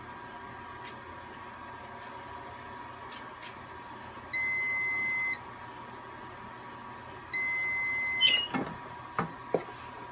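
Heat press timer beeping twice, about a second each, signalling the end of a 10-second press. Then the press is opened by its handle with a few clicks and clunks.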